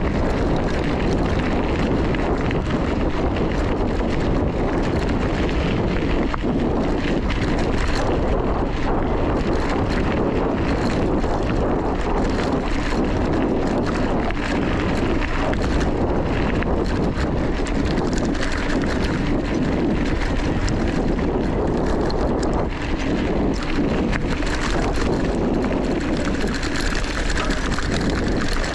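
Steady wind rush on the microphone, with tyre rumble and small rattles from a mountain bike riding fast over a gravel track.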